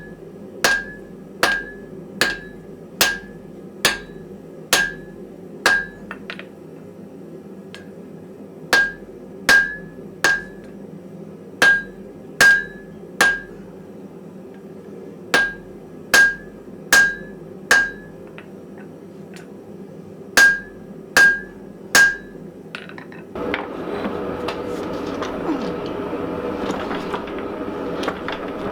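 Hand hammer striking hot wrought iron on an anvil: about two dozen ringing blows in quick groups of three to nine with short pauses between. About 23 seconds in the blows stop and a steady rushing noise of the gas forge burner takes over.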